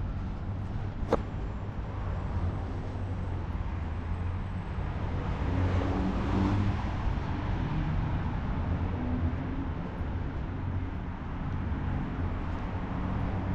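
Street traffic ambience: a steady low rumble of cars, with one vehicle passing louder about six seconds in, and a single sharp click about a second in.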